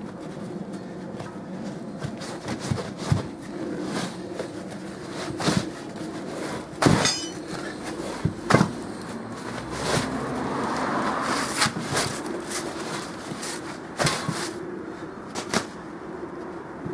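Inner tube being worked out of a tubed Land Rover wheel's off-road tyre by hand: irregular knocks and clunks as the tyre and wheel are handled, with rubber rubbing and rustling, over a steady low hum. The two loudest knocks come about halfway through.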